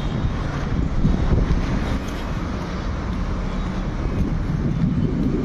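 Steady road traffic noise, cars passing, with wind buffeting the microphone.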